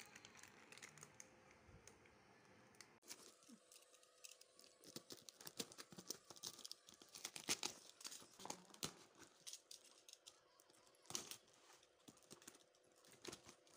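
Hands tearing open a parcel's brown paper wrapping and clear packing tape: faint rustling at first, then from about three seconds in a run of quick crackling rips and crinkles.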